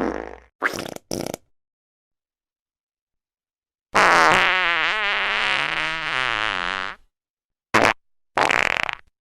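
A string of fart sound effects cut apart by dead silence: three short ones in the first second and a half, a long one of about three seconds with a wavering pitch in the middle, then two short ones near the end.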